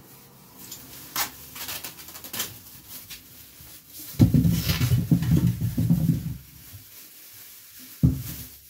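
Handling noises: a few light clicks and knocks, then a couple of seconds of loud, close, low rustling and handling about four seconds in, and a single sharp thump near the end.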